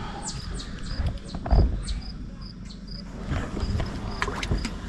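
Insect chirping: short high chirps repeating evenly, about three a second, with a dull thump about a second and a half in and a few knocks near the end.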